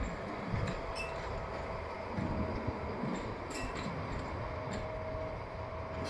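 Diesel locomotive moving slowly along the track: a steady low engine rumble, a thin high squeal that comes and goes, and a few short metallic clanks.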